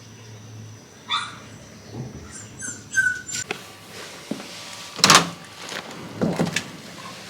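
Shiba Inu dog giving a few short, high-pitched whines, with a louder sharp sound about five seconds in and another a second later.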